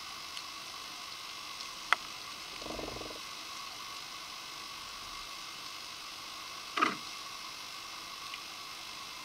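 Steady hiss of underwater ambient noise picked up by an underwater camera on a coral reef. A single sharp click comes about two seconds in, then a brief low rumble, and a louder crackling click near the seven-second mark.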